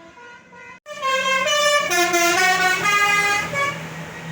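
Basuri 'telolet' multi-tone air horn on a tour bus playing a quick tune of stepped notes for about three seconds, starting suddenly about a second in over the bus engine's low drone. Fainter horn notes come before it.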